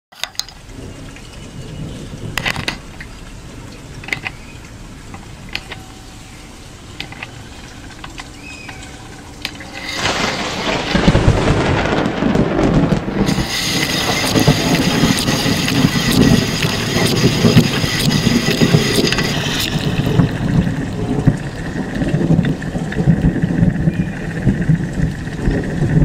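Rain-and-thunder sound effect: a quiet hiss with scattered drop-like clicks, then about ten seconds in a loud, heavy rush of rain sets in and holds. A high-pitched whine sits on top of it for several seconds in the middle.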